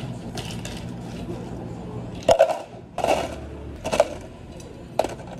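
Ice cubes scooped with a metal ice scoop and tipped into clear plastic cups: four sharp clattering bursts about a second apart in the second half, over a steady low machine hum.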